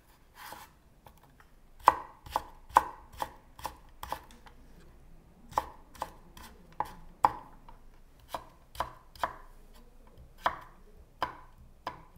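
Kitchen knife cutting carrot into thin matchsticks on a wooden cutting board: sharp knocks of the blade striking the board, two or three a second in short runs with brief pauses.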